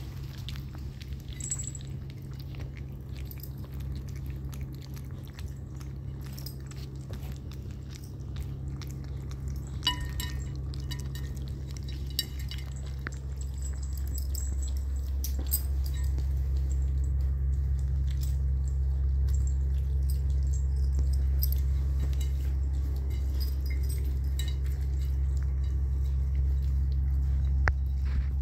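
Puppies eating wet food from a stainless steel bowl: wet lapping and chewing with small clicks and clinks against the bowl, over a steady low hum that grows louder about halfway through.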